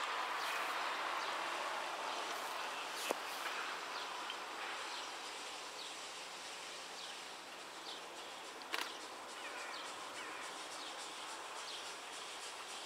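A car passing on the road and fading away, over small birds chirping on and off. Two sharp clicks stand out, about three seconds and about nine seconds in.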